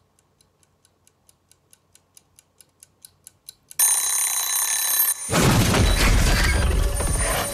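Mechanical kitchen timer ticking about four times a second and growing louder, then its bell ringing loudly and without a break. A loud low rumble joins under the ringing for the last couple of seconds.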